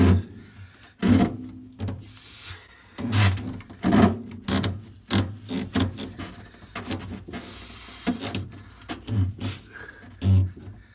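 A rubber fuel filler hose being worked and pushed onto its metal filler pipe by hand, with a hose clamp being fitted. Irregular rubbing and scraping, with several dull knocks and clunks at uneven intervals.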